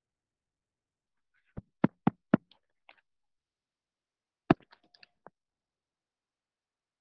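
Knocking: four quick knocks about a quarter second apart, then a single knock about two seconds later followed by a few light clicks.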